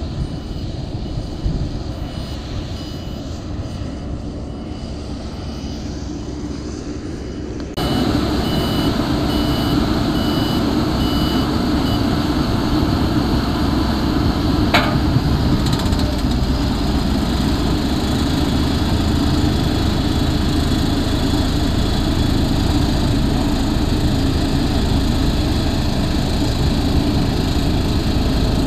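Diesel engine of an Ammann ASC100 single-drum vibratory roller running steadily as the roller compacts gravel aggregate. The sound gets louder about eight seconds in. A faint repeating beep carries on until about the middle.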